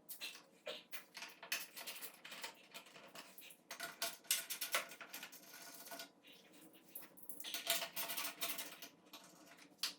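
Irregular small clicks, taps and clinks of hand tools and screws as motorcycle fairing panels are unbolted.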